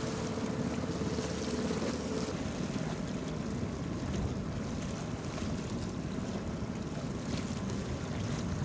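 Steady wind noise buffeting the microphone over the sound of open water.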